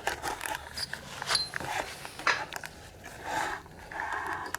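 Scattered clicks and scrapes of metal motorcycle parts and hand tools being handled, a few at a time, while suspension bolts are lined up and fitted.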